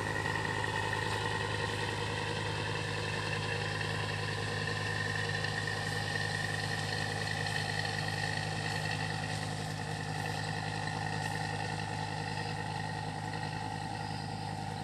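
A steady engine drone: an even low hum with a constant high whine above it, unchanging in pitch.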